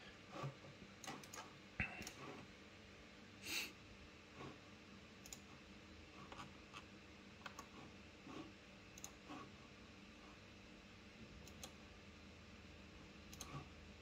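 Faint, irregular clicks of a computer mouse being clicked and scrolled, a dozen or so spread over a quiet room background.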